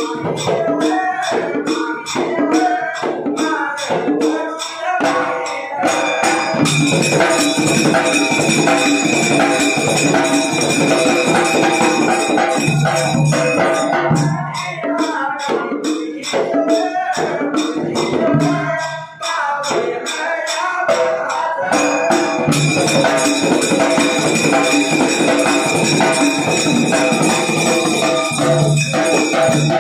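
Live Dhangar devotional folk music: men singing ovi verses over jingling hand cymbals, a small hand drum and a large barrel dhol. About six seconds in, and again past the middle, the singing gives way to louder instrumental passages in which a steady held tone sounds over the cymbals and drums.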